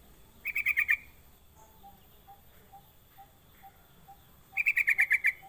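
Yellow-vented bulbul (trucuk) giving two short bursts of rapid high notes, one about half a second in and a slightly longer one near the end. A faint ticking about twice a second runs underneath.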